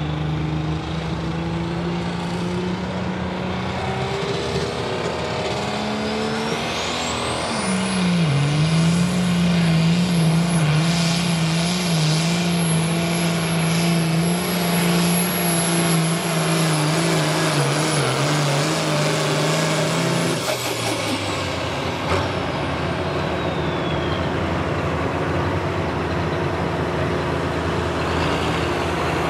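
Allis-Chalmers D21 light pro stock pulling tractor's turbocharged diesel engine pulling the sled. It runs steadily, revs up about seven seconds in and holds full throttle under load with a high, steady turbo whine. About twenty seconds in the throttle cuts and the whine winds down while the engine drops back to a lower, steady run.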